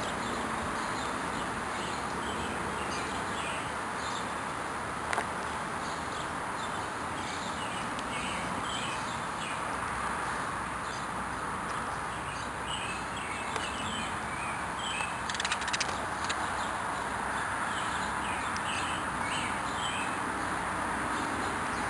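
Birds at a feeder chirping, many short calls throughout, over a steady outdoor hiss, with a few sharp clicks a little past the middle.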